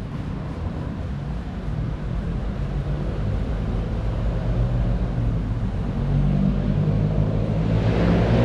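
A motor vehicle's engine running and growing louder as it approaches, with a rush of passing noise swelling near the end.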